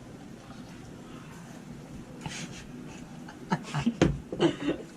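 Low background noise for about two seconds, then a few short, soft voice sounds in the second half.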